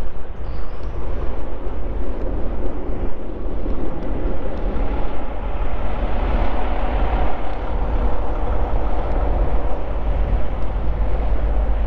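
Diesel engines of a line of stopped semi-trucks idling, a steady low rumble with no break.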